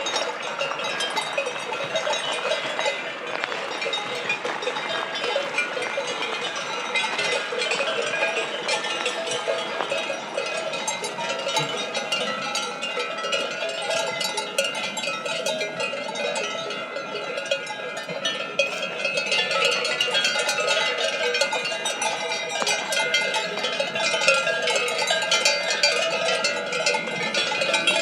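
Cowbells clanking continuously and irregularly, many strikes overlapping with their ringing tones.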